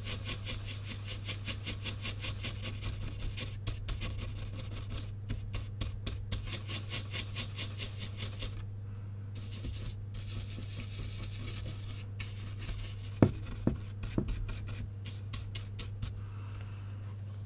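Small bristle brush scrubbing the solder side of a VCR power-supply circuit board in quick back-and-forth strokes, cleaning up the pads around a joint corroded by a leaking capacitor. The scrubbing stops briefly about eight seconds in and thins out after about twelve seconds. A couple of light clicks follow, over a steady low hum.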